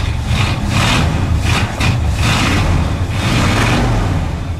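Ford wrecker truck's V8 engine running just after starting, with a steady low rumble. It runs on a newly fitted GM HEI distributor whose ignition timing is only roughly set, a little low.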